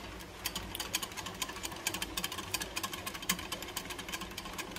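Wire whisk beating a thin whole-wheat flour and water batter in a glass measuring cup, its wires clicking rapidly and steadily against the glass.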